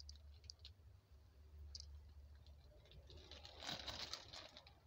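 Faint crinkling of a plastic zip-top bag as shredded turkey is pulled out of it, louder about three and a half seconds in, with a few soft clicks earlier and a low steady hum underneath.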